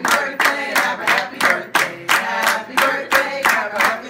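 A group of people singing a birthday song together while clapping along in a steady beat, about three claps a second.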